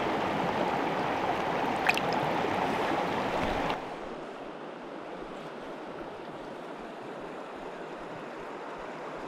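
River water rushing over rocks, a steady rush that is loud and close at first, then drops suddenly to a quieter rush a little under four seconds in.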